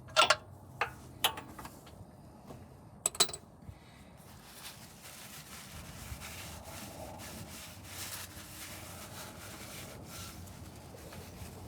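A few sharp clicks and knocks of hand tools and parts being handled in the first few seconds, then faint rubbing and rustling.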